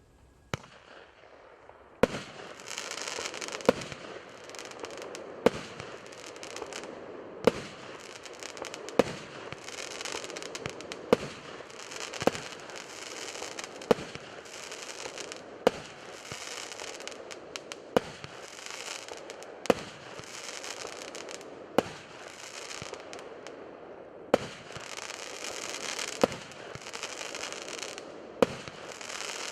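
A multi-shot firework cake (Roman-candle style) firing, the first shot coming about two seconds in and then one every second and a half to two seconds. Its comets break into coconuts, peonies and chrysanthemums, so a steady crackling glitter fills the gaps between the bangs.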